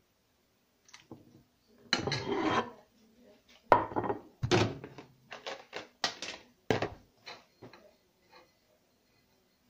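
Dishes and utensils clattering on a kitchen counter as food is plated: a short scrape, then a string of sharp knocks and clinks between about two and eight seconds in.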